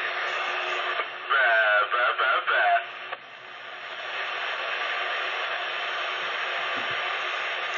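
CB radio receiver putting out steady static hiss on an open channel, with a short loud burst of garbled, warbling voice-like transmission about a second in, after which the hiss drops briefly and swells back.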